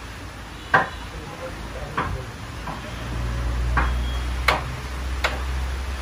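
Carrom striker flicked across a bel-wood carrom board, clacking sharply against the wooden frame as it rebounds: five clacks. From about halfway, a low steady rumble runs underneath.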